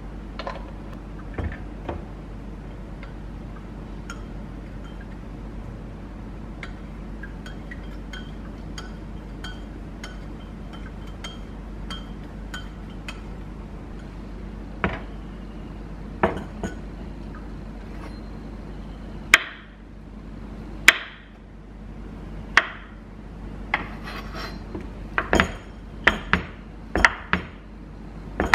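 A metal spoon stirs in a drinking glass, clinking lightly and repeatedly against its side with a faint ring. Through the second half come irregular sharp knocks, louder and spaced a second or two apart, of a kitchen knife cutting avocado down onto a wooden cutting board.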